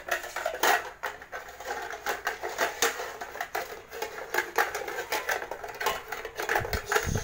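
A stick of plastic Lego bricks being stirred around inside two nested metal cooking pots, clattering and scraping against the metal in quick irregular clicks and knocks. There are a few dull thumps near the end.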